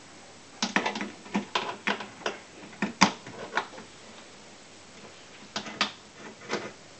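Metal cabinet hinges clicking and knocking against their mounting brackets as the hinge lugs are worked into the bracket slots. A cluster of light clicks runs through the first few seconds, the sharpest about three seconds in, and a few more come near the end.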